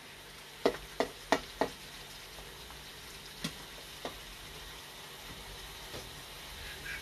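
Pork sizzling as it is sautéed in a pan, with sharp knocks of a cooking utensil against the pan: four quick ones about a second in, then a few single ones later.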